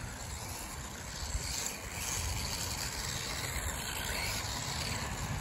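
Brushless-converted Feiyue FY01 RC buggy driving across rough grass some way off, its motor and tyres making a steady noise.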